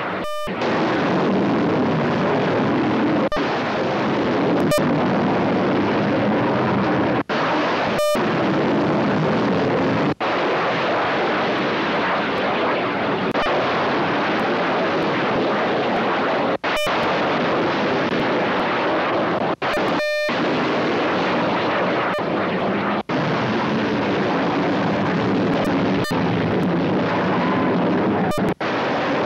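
Loud, steady rocket noise of a missile being launched from a warship, a dense rushing that continues throughout, with a few brief gaps where the sound cuts out.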